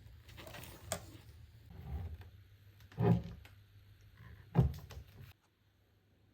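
Light clicks and knocks with two louder low thumps, about three seconds and four and a half seconds in, then the sound drops out to near silence about five seconds in.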